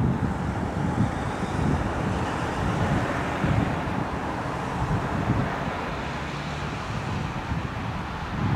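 Wind buffeting the microphone in uneven gusts, over a faint steady low rumble.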